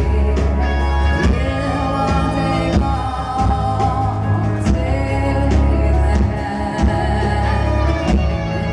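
Live folk-metal band playing loud, with singing over heavy bass and drums, heard from the audience.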